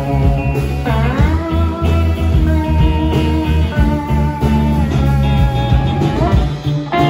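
Live electric rock band playing a blues-tinged psychedelic rock number. An electric guitar lead bends up into long held notes, about a second in and again near the end, over drums and a second guitar.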